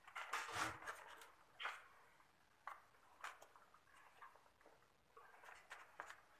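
Faint, scattered rustles and light knocks of the insulated refrigerant pipe bundle and cable being handled and pushed against the wall at the aircon indoor unit.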